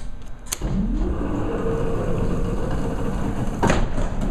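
Old Otis freight elevator machinery starting up: a low rumble with a hum that rises in pitch and then runs steadily, with a sharp clunk about three and a half seconds in.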